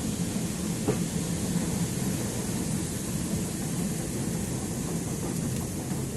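London Underground escalator running: a steady low mechanical rumble and hum, with a faint click about a second in.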